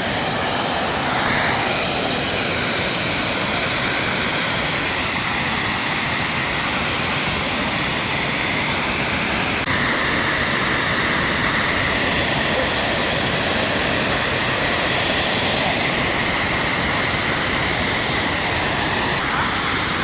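Tiered waterfall rushing steadily, a loud, even wash of falling water, its tone shifting slightly about halfway through.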